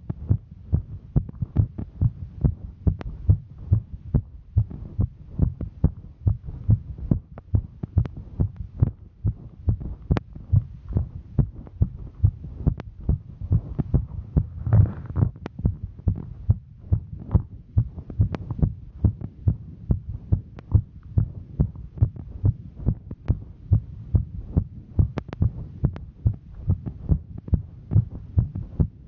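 A woman's heartbeat, recorded during a hike, beating steadily and regularly over a low hum. A brief noise rises over it about halfway through.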